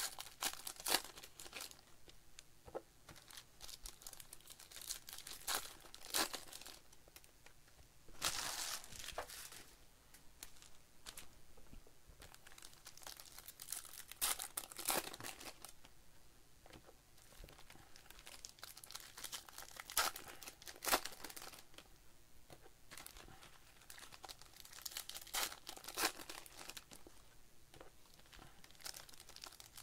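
Trading-card pack wrappers crinkling and tearing open while the cards are handled and flipped through: irregular rustles and short snaps, with longer crinkling bursts about eight seconds in and again near the middle.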